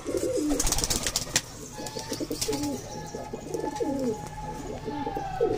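A flock of domestic pigeons cooing, several birds at once with overlapping rising-and-falling calls. A brief crackling noise comes about a second in.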